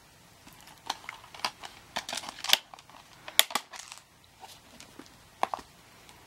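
Plastic DVD case and discs being handled, with discs snapped on and off the case's centre hub: a run of sharp plastic clicks and clacks, loudest about two and a half and three and a half seconds in, with a last pair of clicks near the end.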